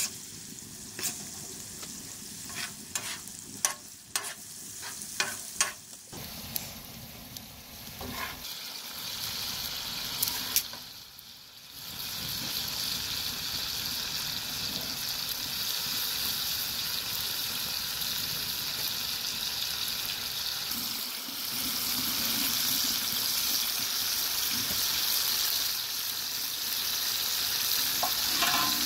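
Food frying with a steady sizzle. For the first few seconds a utensil clicks and scrapes against the pot as the food is stirred. The sizzle then settles into an even hiss that grows louder a little before halfway.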